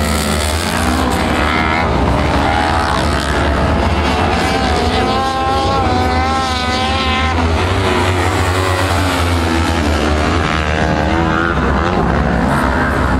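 Engines of small single-seat dirt-track race buggies running hard, their pitch rising and falling as they accelerate and come off the throttle through the bends, over a steady low rumble.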